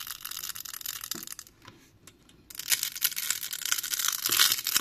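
Orange adhesive fixing tape under a Xiaomi phone's battery being peeled and pulled out, a crackling, tearing sound as the glue lets go and releases the battery. It pauses briefly a little before two seconds in, then comes back louder.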